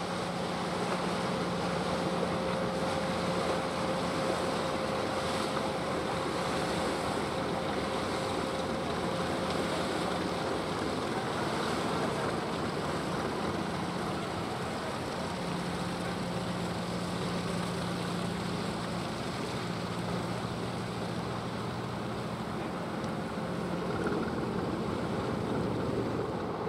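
Ship's diesel engine running steadily, a low hum whose note shifts slightly around the middle, over harbour wind and water noise.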